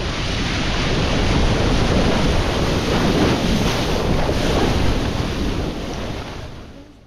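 Sea water rushing and splashing around a sailing yacht's bow as it punches through waves, with wind buffeting the microphone. It swells through the middle and fades out near the end.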